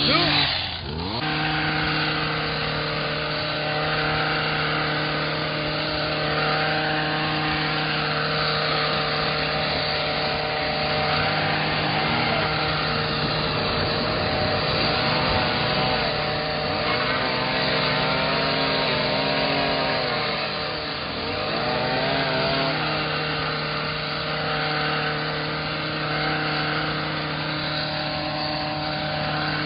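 Small two-stroke engines of gas-powered trimming tools running at high speed. One holds a steady pitch while another rises and falls in pitch for a while in the middle, as it is throttled up and down during cutting.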